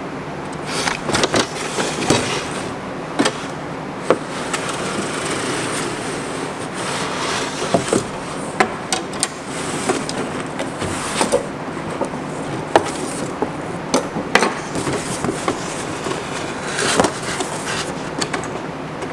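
Unboxing: a cardboard box handled and opened and the metal fuel lines lifted out, with irregular rustling, scraping, clicks and knocks over steady background noise.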